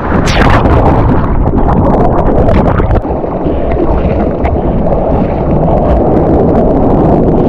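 Loud wind buffeting the microphone over rushing, churning water, a continuous noise with no let-up.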